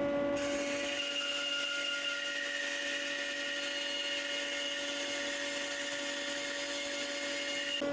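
Charnwood B350 bandsaw cutting through rough 2x4 pine: a steady hiss with high, steady ringing tones through the cut. It ends abruptly near the end, leaving the steady hum of the running saw and dust extractor.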